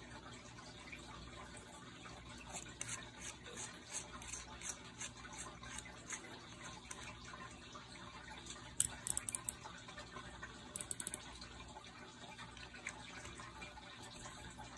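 Rifle scope turret being turned by hand: a string of light clicks from about two seconds in, then two quick runs of fine rapid clicks about nine and eleven seconds in, over a steady low hiss.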